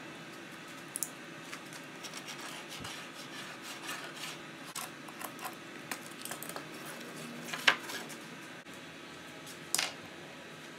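Metal spring clamps being handled, opened and set down while they are taken off a bent-wood blower housing ring: a string of light clicks and clacks, the two loudest in the second half.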